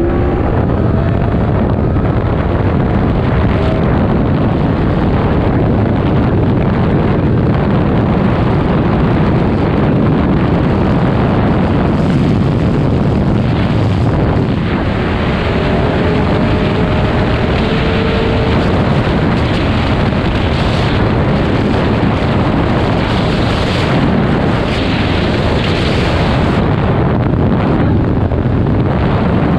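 Heavy wind noise buffeting the microphone over a Yamaha MT-10's crossplane inline-four engine running hard at high motorway speed, speed climbing well past 200 km/h.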